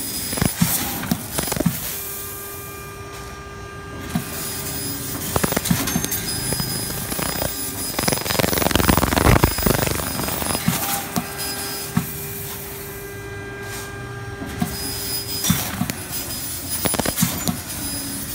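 EZ Fiber fiber laser cutter cutting sheet metal: a steady machine hiss with a whining tone that comes and goes, sharp clicks, and a louder rushing stretch about eight seconds in.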